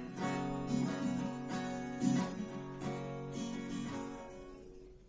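Acoustic guitar strumming chords, about two strokes a second; the last chord is left to ring and fades out near the end.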